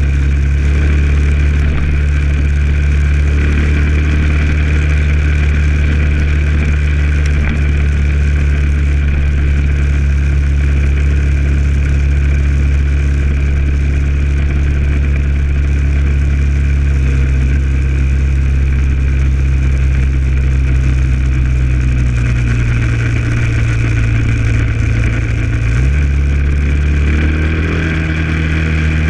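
Single-cylinder four-stroke engine of a 2008 Honda XR650L dual-sport motorcycle running steadily at cruising speed. Its note drops for a few seconds past the middle, then steps back up near the end.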